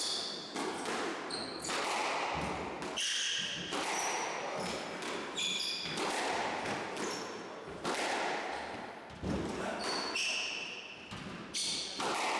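Squash rally: the ball cracking off rackets and the court walls about once a second, each hit echoing in the enclosed court, with short high squeaks of court shoes on the wooden floor between shots.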